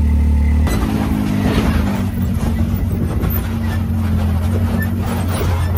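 Can-Am side-by-side's engine idling steadily, then abruptly, less than a second in, the machine under way: its engine running beneath the noisy rumble and rattle of the ride over a rocky dirt trail.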